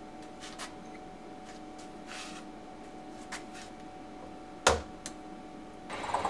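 Small clicks of a metal part being handled in a milling-machine vise, then one sharp knock about four and a half seconds in as the part is tapped down in the vise with a round bar. Near the end the milling machine's motor starts and runs steadily.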